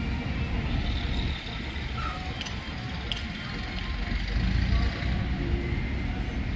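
Steady low rumble of vehicle engines and road noise, with a couple of faint clicks in the middle.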